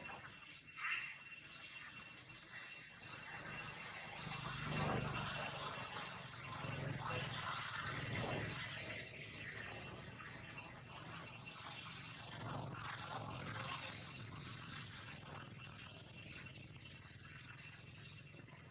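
Bird chirping in short, high notes that come in quick clusters of two to five, a cluster about every second, over a faint steady high hum.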